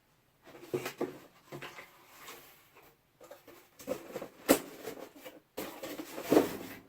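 Hands rummaging among small objects: irregular rustling with sharp clicks and knocks, the loudest about four and a half and six and a half seconds in.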